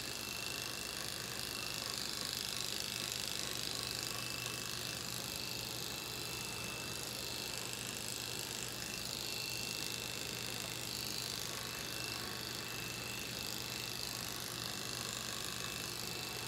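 Corded electric pet hair clippers running with a steady buzz as they shave a cat's fur, the hiss of the blade rising and falling as it moves through the coat.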